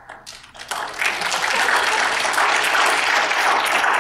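Audience applauding: a few scattered claps that swell about a second in into full, steady applause.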